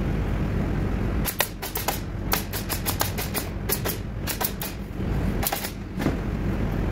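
Pneumatic nailer firing about two dozen sharp shots in quick, uneven runs, starting about a second in, as it pins an MDF panel into a wooden frame.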